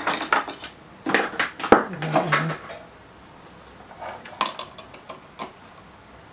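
Clicks and light clinks of wires and small metal parts being handled at a speed-controller module's screw terminals. There is a cluster of sharp clicks in the first two and a half seconds, then a few scattered ones later.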